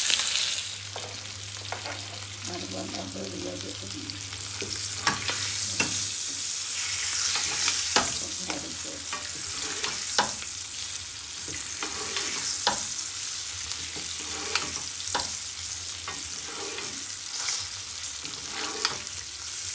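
Whole pomfret shallow-frying in oil in a pan with a steady sizzle. A metal spoon and spatula clink against the pan every second or two as hot oil is spooned over the fish.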